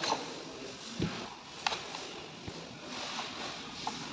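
Hand tools and radiator parts being handled: scattered light clicks and knocks, with a dull thump about a second in and a sharp click soon after, over a steady hiss.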